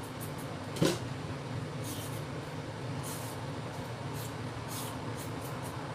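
Hand vegetable peeler scraping a potato and then a carrot in short, light strokes, over a steady low hum. A single knock about a second in.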